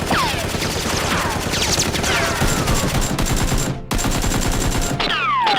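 Rapid automatic gunfire, as a film sound effect, with several falling whistles running through it. The firing drops out for an instant about four seconds in.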